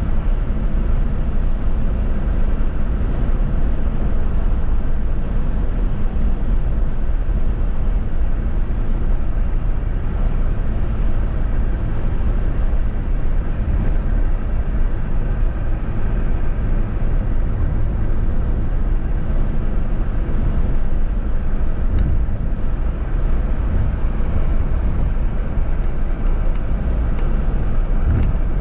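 Steady road and engine noise of a vehicle driving along a highway, a constant low rumble.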